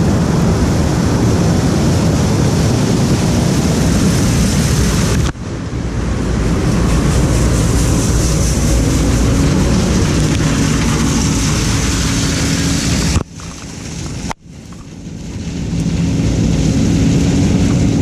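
Combine harvester with a corn head running directly over the camera while harvesting corn: a loud, steady mix of engine hum and rushing machinery noise. It breaks off suddenly about five seconds in and again around thirteen seconds, then builds back up.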